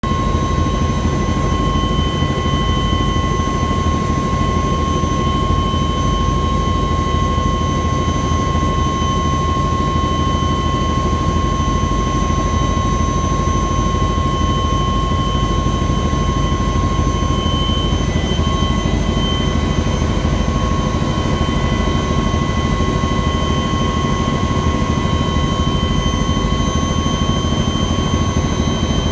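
Cabin noise of a Kawasaki-Vertol KV-107 (HKP 4) twin-turbine tandem-rotor helicopter during take-off, heard from inside the cabin: a loud, steady low rumble with several steady high whining tones over it, unchanging throughout.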